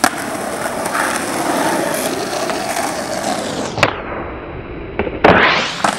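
Skateboard wheels rolling steadily over rough asphalt, then a sharp snap of the board a little before four seconds in and a loud clack about a second later as the board comes down on the pavement during a flip trick.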